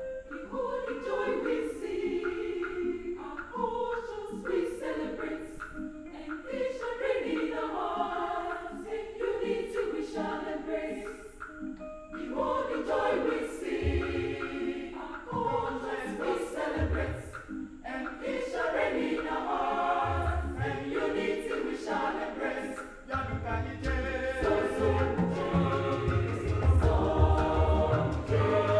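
A large mixed choir singing in parts. Low strokes come in a few times around the middle, and a steady low beat joins the singing from a little past two-thirds of the way through.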